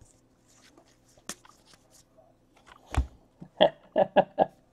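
Baseball cards being flipped through by hand, with faint light clicks. A knock comes about three seconds in, then near the end a quick run of four short, loud sounds that are louder than the card handling.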